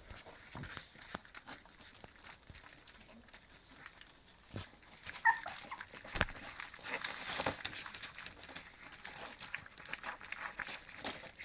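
Three-week-old cocker spaniel puppies eating their first solid food together from a metal bowl: wet lapping and chewing with many small clicks and knocks against the bowl, and rustling of the newspaper under them. A brief high squeak from one puppy about five seconds in.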